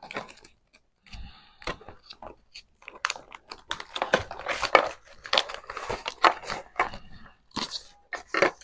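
Handling noise from the pistol case's accessories: a dense run of crinkling and rustling packaging mixed with small plastic clicks and knocks, busiest in the middle.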